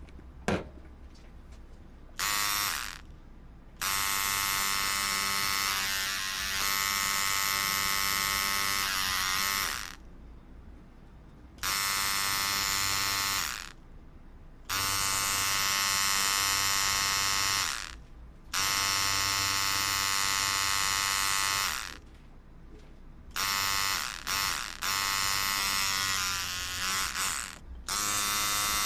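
Electric tattoo machine buzzing in repeated bursts of one to six seconds with short pauses between, the stop-and-start running of needle touch-up work near the end of a tattoo.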